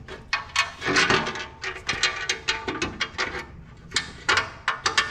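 Steel mulch plate knocking and scraping against the stump grinder's frame as it is held up and shifted into position: a quick, irregular run of metal clanks and clicks.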